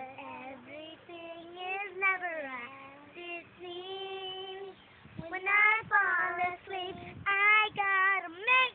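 A young girl singing a tune, holding some long notes and sliding between pitches, louder in the second half.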